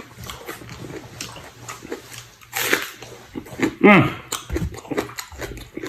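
Eating sounds from chicken stewed with mushrooms: chewing and mouth noises, with a noisy slurp about two and a half seconds in and a short voiced hum about four seconds in.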